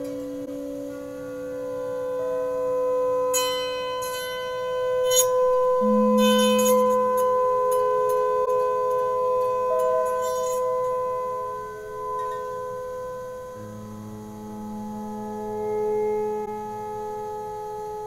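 Electric autoharp (zither) played through effects: long ringing notes layer and overlap into a slowly shifting chord, with a flurry of quick struck notes between about three and ten seconds in.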